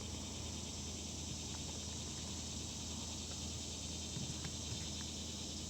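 Steady high-pitched insect chorus over a low hum, with a few faint clicks.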